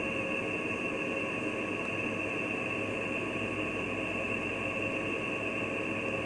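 Steady hiss with a constant high-pitched whine running through it, unchanging throughout.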